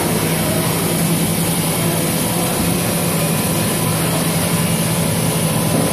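Food-processing machinery running steadily: a constant low hum with a thin steady tone and a high hiss above it, unchanging throughout.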